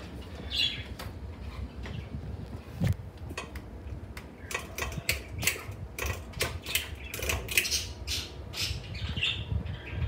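Hampton Bay Metairie 24-inch ceiling fan running with a low steady hum, under a string of irregular sharp clicks and a few short high chirps that come thicker in the second half.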